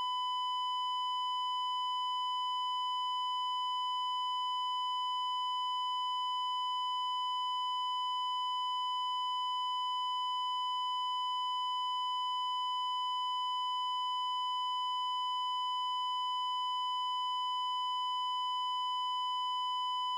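Heart monitor flatline alarm: a single continuous, steady electronic beep tone held without any pulse, signalling no heartbeat.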